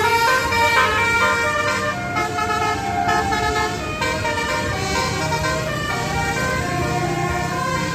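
Bus 'telolet' multi-tone air horn from Basuri playing a fast melody of short stepped notes over a low steady hum.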